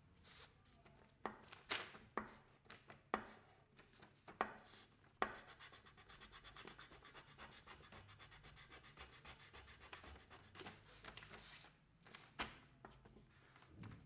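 Pastel stick rubbing and scratching across smooth paper: a few separate strokes, then several seconds of fast, even back-and-forth scribbling, then a few more single strokes near the end.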